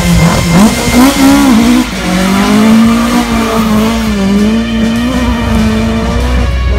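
Ford Escort Mk2 rally car's engine revving hard and accelerating away from a stage start. Its pitch swings up and down sharply in the first two seconds, then holds a steady, wavering note.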